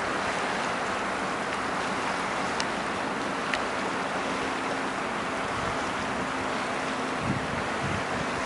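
Steady wind noise on the microphone at the lakeshore, a constant hiss with gusts buffeting the microphone near the end. Under it, about a third of the way in, a faint low steady hum comes in from the distant diesel F-unit locomotives.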